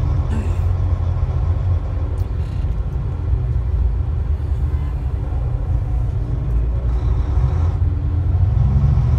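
Steady low rumble of a semi truck's diesel engine and road noise, heard from inside the cab while driving.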